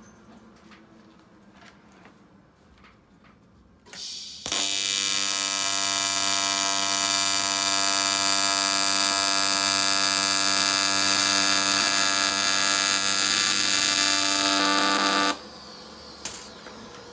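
AC TIG welding arc on an aluminum intercooler pipe, laying a bead. The arc strikes about four seconds in with a short crackle, then holds a loud, steady, even buzz for about eleven seconds before cutting off sharply when the bead is finished.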